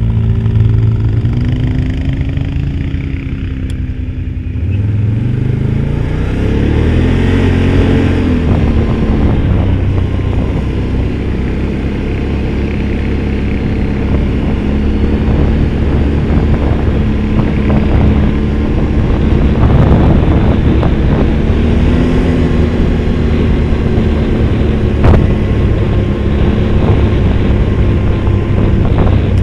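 Off-road vehicle engine running while driving a rough dirt track, its pitch rising and falling with the throttle a few times. Occasional knocks, the sharpest about 25 seconds in.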